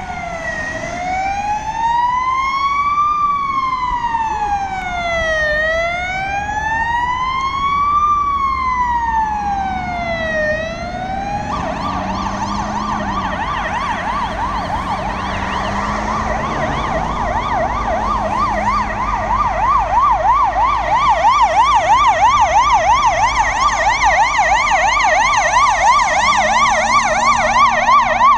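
Emergency vehicle siren: a slow wail rising and falling about every five seconds, switching about eleven seconds in to a fast yelp, and growing louder in the last several seconds.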